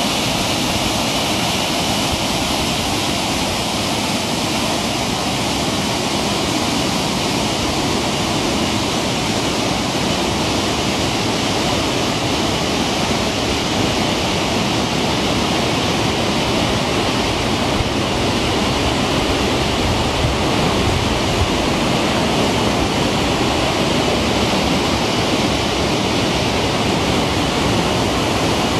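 Reservoir water overflowing a dam's stepped spillway and running down the sloping apron: a steady, unbroken rushing of falling water.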